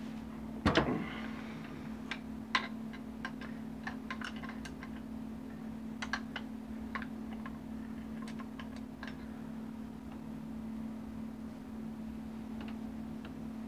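Scattered light clicks and taps of a 3/16 Allen wrench turning the pistol-grip screw and of an AR-15-style rifle being handled, with one louder knock about a second in. A steady low hum sits underneath.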